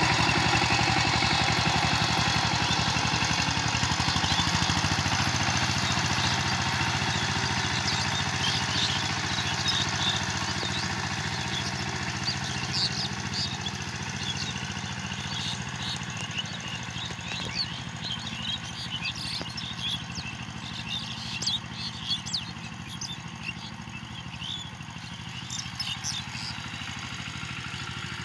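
CHANG TUO 12-horsepower power tiller's single-cylinder diesel engine running steadily under load while tilling, growing gradually fainter as the tiller moves away. Short high chirps come in from about eight seconds in.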